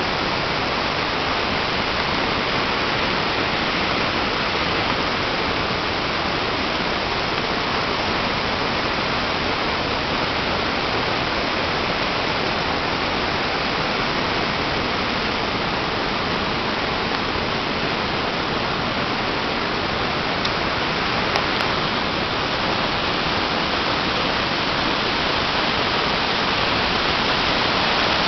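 Steady rush of floodwater pouring from a dam's spillway, growing a little louder near the end.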